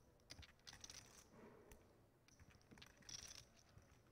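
Faint, scattered clicking of clay poker chips being handled at the table, over near-silent room tone.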